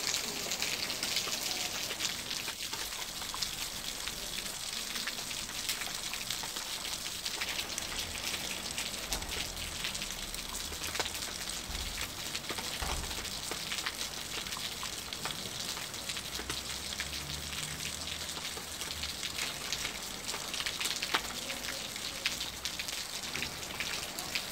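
Steady rain falling on wet stone paving: an even hiss with many small drop ticks.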